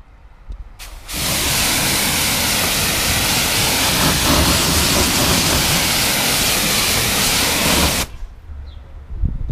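Karcher K7 pressure washer spraying through an MJJC snow foam lance: a loud, steady hissing jet with the pump running beneath it. It starts suddenly about a second in and cuts off about eight seconds in, as the trigger is pulled and released.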